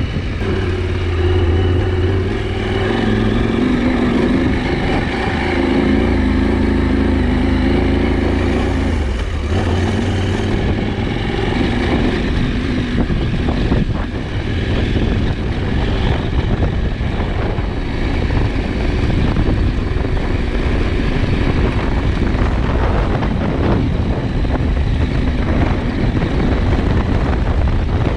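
KTM 790 Adventure's parallel-twin engine running while riding, a steady engine note for about the first ten seconds, then a rougher rumbling noise with scattered knocks that partly masks it.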